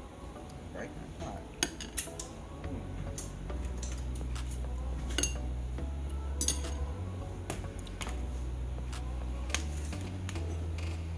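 Knife and spatula clinking and scraping against a foil pie pan as a slice of pie is cut and lifted: a scatter of sharp clicks, over a low hum that comes in about a third of the way through.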